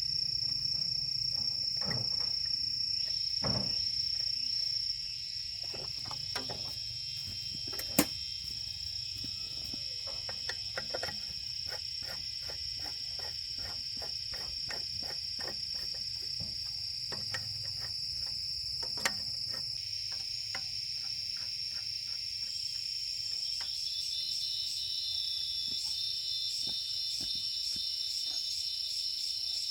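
A steady high-pitched trill, insect-like, under a scatter of light clicks and taps. The taps come in a quick run through the middle, and sharper knocks fall about 8 seconds in and again near 19 seconds.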